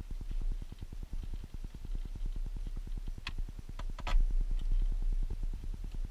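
A few light clicks and knocks from parts being handled under the dashboard, over a low, rapid pulsing rumble. The clicks come about three seconds in and in a short cluster about four seconds in.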